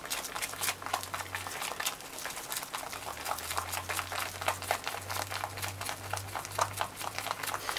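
Chopsticks stirring natto in its foam tray: a fast, irregular run of small clicks and sticky squishing as the beans are whipped.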